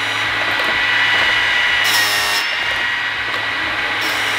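Dinasaw T-REX automatic chainsaw chain sharpener running: its grinding wheel motor whines steadily, and twice, about two seconds apart, the wheel comes down on a chain's cutter tooth with a brief grinding noise as it sharpens it.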